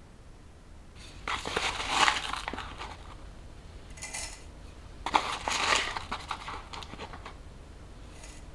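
Dry loose-leaf tea rustling and crunching as it is scooped and tipped into a glass teapot's mesh strainer, in two bursts about a second in and about five seconds in, with a short rustle between.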